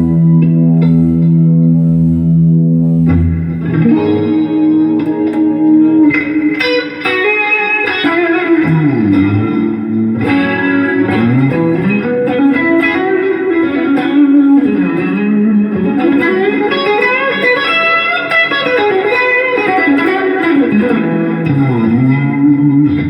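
Telecaster electric guitar with Seymour Duncan pickups, played through amplifiers. It opens on a held chord that pulses about once a second. After about three seconds it moves into a brighter lead line of sliding, bending notes that rise and fall.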